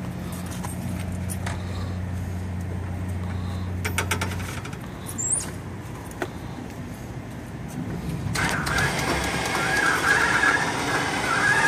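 A motorcycle lift raising a sportbike: a steady low hum for the first four seconds or so, a few clicks, then from about eight seconds a louder grinding noise with a wavering high squeal.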